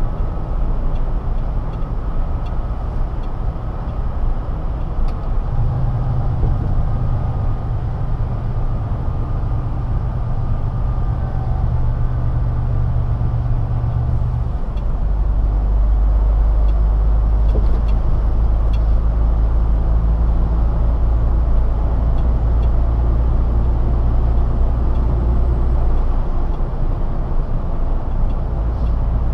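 Steady drone of a MAN TGA truck's diesel engine and tyres, heard from inside the cab while cruising. The low hum changes pitch twice, about five seconds in and again around fifteen seconds in, and is a little louder after the second change.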